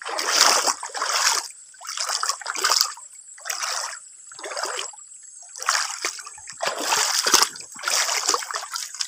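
Footsteps wading through a shallow, rocky stream: a string of splashes, about one a second.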